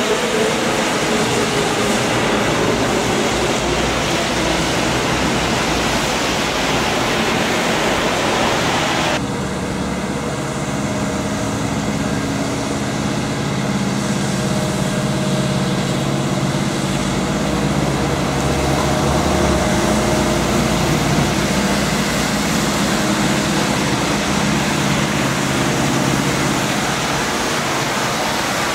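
A double-decker bus passing close with tyres hissing on a wet road; about nine seconds in, a sudden cut to a Wrightbus New Routemaster hybrid double-decker's steady engine hum as it rolls up to a stop, with traffic hiss from the wet street.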